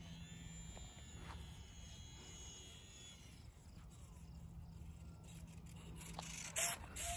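Faint high whine of a small electric RC plane's motor and propeller in flight, dropping in pitch about three seconds in as the throttle is eased back for a landing. A brief rush of noise near the end.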